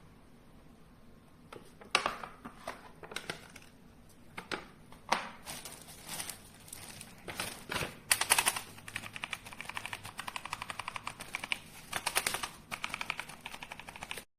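Typing on a ZIYOU K3 mechanical keyboard with red linear switches. Separate keystrokes come first, then from about eight seconds in a fast run of rapid key presses.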